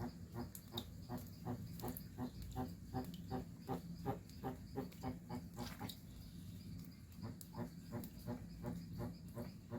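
Jabuti tortoise calling: a steady series of short, pitched clucks, about three a second, with a brief pause a little past the middle.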